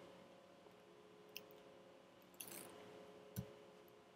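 Three faint, separate computer keyboard key presses against near silence, the loudest about three seconds in.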